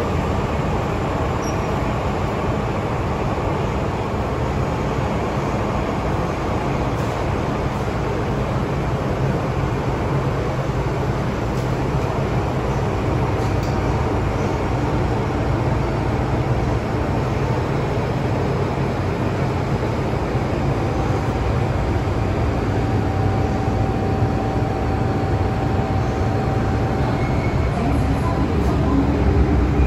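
MTR M-train electric multiple unit running along the track: a continuous rumble of wheels and running gear, with a faint steady whine in the second half and a slight rise in loudness near the end.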